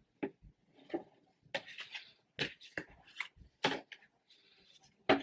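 Hands handling a phone and plastic screen-protector kit: a string of light taps and clicks, about a dozen, with short bursts of plastic crinkling.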